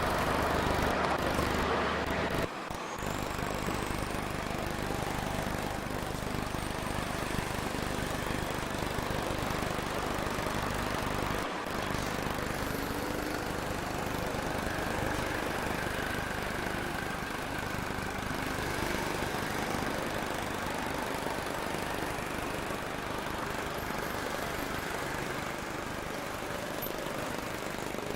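Heavy diesel machinery engine running steadily, with short dips in the sound about two and a half seconds in and again about eleven seconds in.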